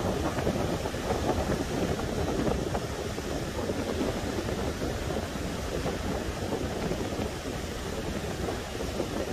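Sea surf breaking and washing up a pebbly shore, with strong wind buffeting the microphone in a steady, low rush.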